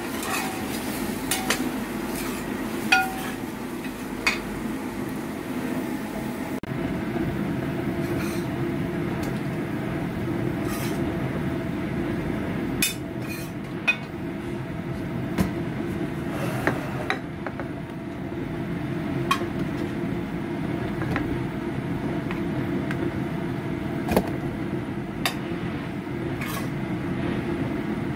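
A metal spatula and spoon clink and scrape now and then against a steel wok and a plate as a stir-fry is stirred and served, over a steady low drone that gets louder about six seconds in.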